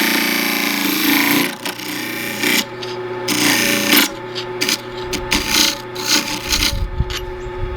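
Wood lathe running with a steady motor hum while a gouge cuts into the spinning cedar bowl blank, giving irregular bursts of loud scraping cutting noise as the top of the bowl is taken down shorter after a catch tore the rim.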